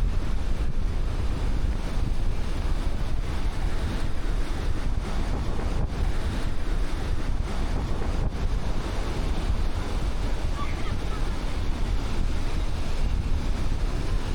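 Black Sea surf breaking steadily on the beach, with wind buffeting the microphone and adding a low rumble.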